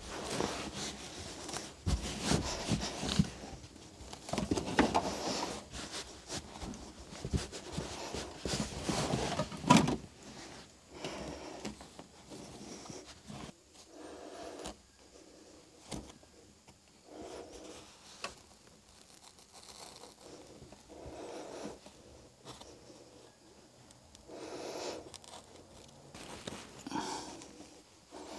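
Molded truck floor carpet rustling and scraping as it is pressed down by hand and worked around the floor shifter levers, with a few knocks. Denser for the first ten seconds or so, then quieter and more intermittent.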